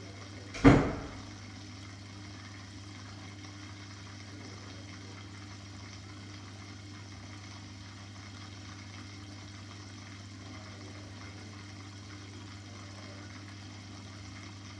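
Steady low hum and water sound of an aquarium filter running, with a single sharp knock a little under a second in.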